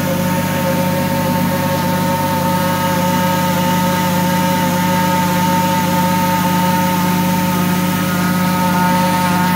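Plastic grinding and recycling machinery running steadily: a constant motor hum with a steady whine over it, unchanging.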